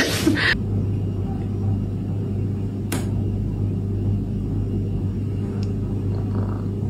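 A steady low hum with a few even overtones, and a single sharp click about three seconds in. A short noisy burst ends in the first half-second.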